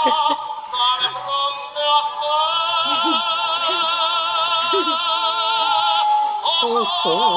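Singing plush toy cow playing a recorded operatic aria: a high, strongly vibrato voice that holds one long note for several seconds in the middle.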